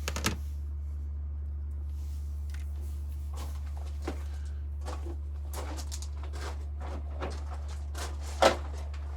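Hand crimping tool and small handling noises while crimping an insulated wire terminal: two sharp clicks at the start, scattered light ticks, and a louder click near the end, over a steady low hum.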